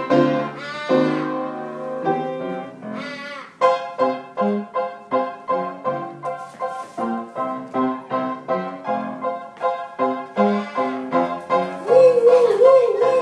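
Piano playing an instrumental passage of a song, with evenly repeated chords about two a second. A wavering held note comes in near the end.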